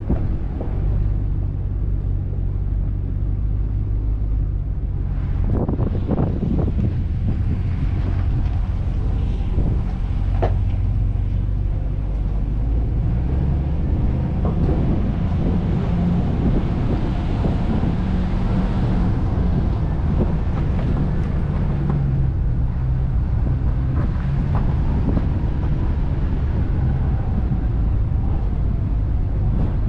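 Four-wheel-drive vehicle's engine running at low speed with tyre and road noise over rough dirt and rock. A few knocks from the rough ground come about five to seven seconds in and again around ten seconds.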